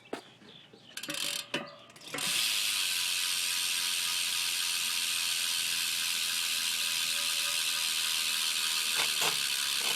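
BMX rear hub freewheeling as the back wheel spins: its ratchet pawls make a fast, even, continuous buzz of clicks. It starts about two seconds in, after a few short handling clicks, and holds at a steady level.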